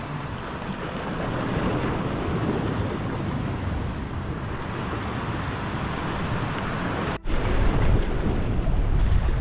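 Sea washing against a rock ledge, with wind on the microphone. After a brief dropout about seven seconds in, the wind rumble is heavier.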